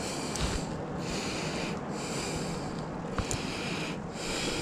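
Heavy breathing through the nose close to the microphone, a rhythm of about one breath-sound a second, over a low steady rumble; a small click about three seconds in.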